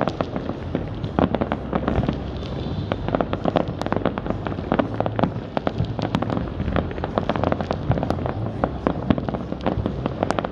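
Fireworks going off in a dense, irregular barrage of many sharp bangs and crackles in quick succession, over a steady low rumble.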